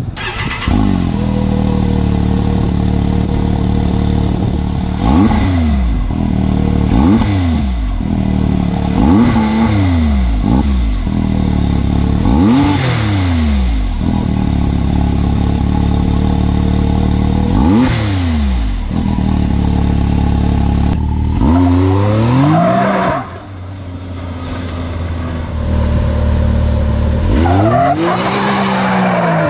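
Can-Am Maverick X3's turbocharged three-cylinder engine, on its factory stock exhaust, idling and then revved up and back down in a series of short throttle blips, with a longer rev near the end.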